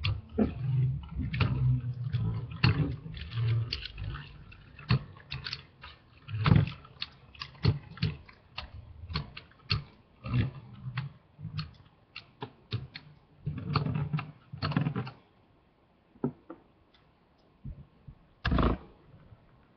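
Two Beyblade metal spinning tops, L-Drago Destroy and Cosmic Pegasus, spinning in a plastic stadium. There is a low whirring of their tips on the stadium floor, with many sharp clicks as the tops strike each other and the stadium wall. It dies away about 15 seconds in as the tops stop, and a brief clatter comes near the end.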